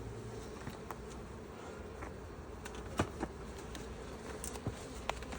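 Honeybees buzzing steadily around an open hive, with a few light clicks about three seconds in and again near the end.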